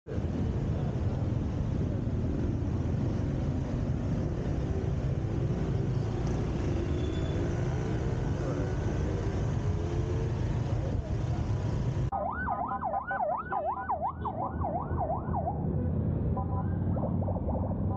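Road traffic and engine rumble heard from a motorbike, with a few rising engine tones. About two-thirds in, the sound changes abruptly and a fast siren wails up and down about twice a second for a few seconds, followed by short broken tones.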